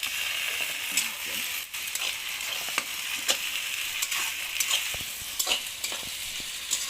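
Onions, garlic and ginger sizzling in hot oil in a pan while being stirred, with a steady frying hiss and frequent sharp clicks and scrapes of the stirring utensil against the pan.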